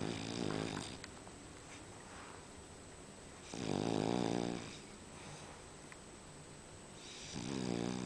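A sleeping furry pet snoring: three snores about four seconds apart, each about a second long.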